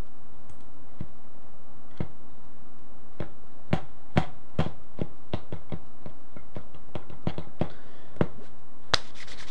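A string of short, sharp clicks and taps at irregular spacing, mostly about two a second, over a steady background hiss.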